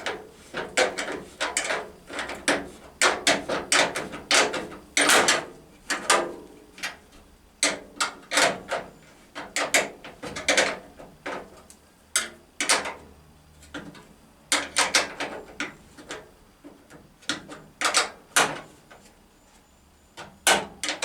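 Ratchet spanner clicking in repeated strokes while tightening a radiator mounting bolt, with metallic knocks of tools on the bracket.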